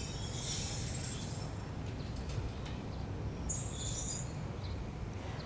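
Birds chirping in two brief high-pitched bouts, one at the start and one about three and a half seconds in, over a low steady rumble.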